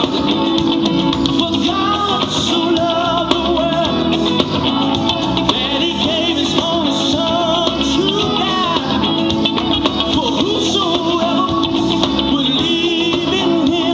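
Music with a singing voice over an instrumental backing, playing steadily throughout.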